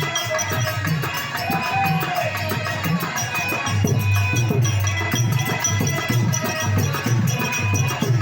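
Instrumental interlude of an Indian folk song: a drum beat with steady held melodic tones and no voice.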